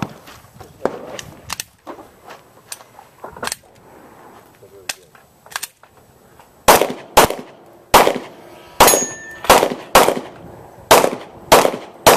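Pistol gunfire during a practical shooting stage: a few quieter, scattered shots in the first half, then a string of about eight loud, sharp shots, roughly half a second to a second apart, in the second half.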